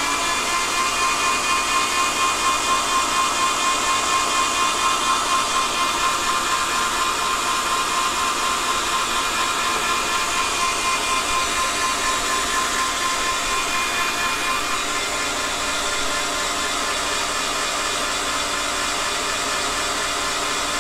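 Geek Chef stand mixer running steadily, its wire whisk beating a thick cooked-flour frosting base in a stainless steel bowl: an even motor whine over the whirring of the whisk.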